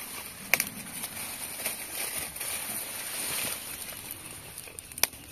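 Rustling of dry corn leaves and pumpkin vines being handled while a pumpkin is picked from the ground, with two sharp clicks, one about half a second in and one near the end.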